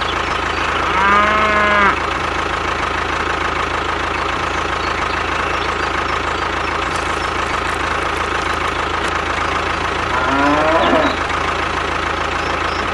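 Tractor engine idling steadily. A cow moos once about a second in, and another animal call comes about ten seconds in.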